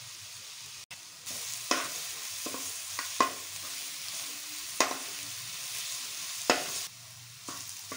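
Minced garlic sizzling in hot oil in an aluminium kadai, with a spoon scraping and knocking against the pan about six times as it is stirred.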